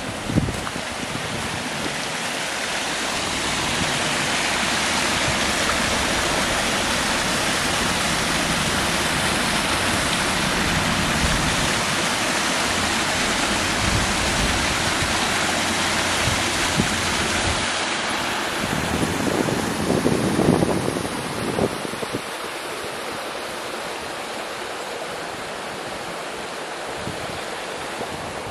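Small rocky woodland stream rushing over stones in little cascades, a steady wash of water. About twenty seconds in, a few louder rustles and knocks come, then the water sound drops to a fainter, duller wash.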